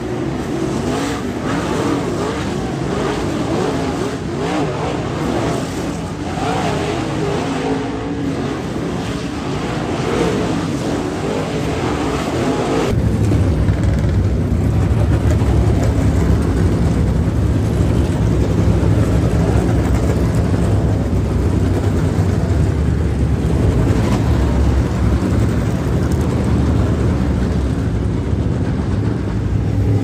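Several dirt late model race cars' V8 engines running hard on a dirt oval, a dense, continuous engine din. About 13 seconds in it turns louder and deeper, a heavy low rumble as the cars pass close by.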